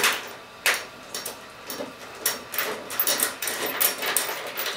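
Hand tools clicking and knocking on metal as a hood hinge bolt is tightened on a fiberglass hood: a sharp knock at the start, another under a second in, then scattered lighter clicks.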